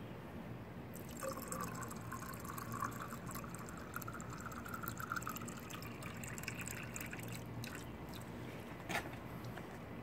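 Water running and trickling, starting about a second in and easing off near the eighth second, with a single sharp knock near the end.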